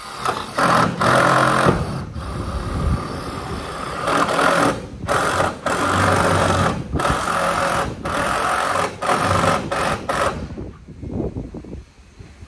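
Power drill driving stainless roofing screws into metal roofing sheets, in a run of bursts about a second long with short gaps. It stops about ten seconds in.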